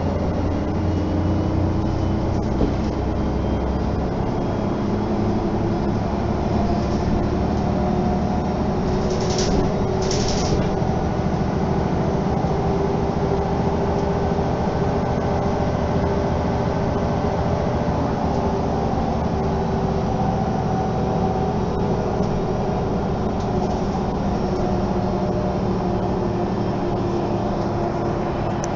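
Interior running noise of a Mercedes-Benz O 530 G Citaro articulated bus under way, heard from inside the passenger cabin: steady engine and road noise, the engine note rising and falling with speed. Two short hisses come about nine and ten seconds in.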